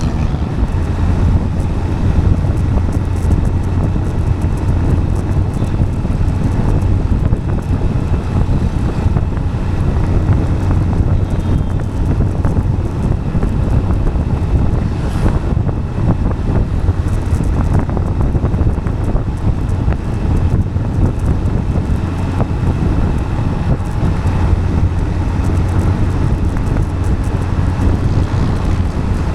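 Steady low road rumble from a moving vehicle on asphalt, with wind noise on the microphone.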